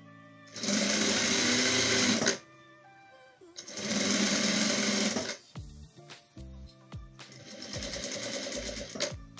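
Sun Special electronic single-needle straight-stitch industrial sewing machine stitching in three short runs. The first two runs are loud and last about a second and a half each; the third, near the end, is quieter.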